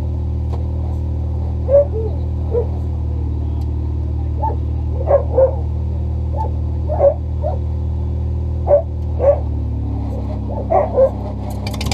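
A dog barking repeatedly, about a dozen short barks, some in quick pairs, over a steady low hum. A louder, rougher engine sound comes in right at the end.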